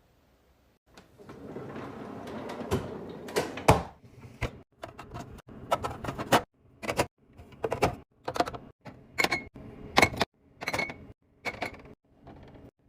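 Items being handled and set down while a refrigerator is organized: a rustle for a couple of seconds, then a quick series of sharp clicks and knocks from containers placed on the shelves, a few ringing briefly.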